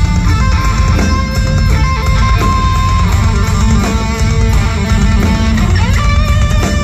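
A metal band playing live, with an electric guitar carrying a melodic line over a heavy low end. About six seconds in, the guitar bends up into a held note.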